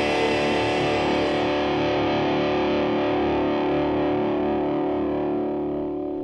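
Distorted electric guitar music held on a sustained chord, its high end gradually closing off as it begins to fade out.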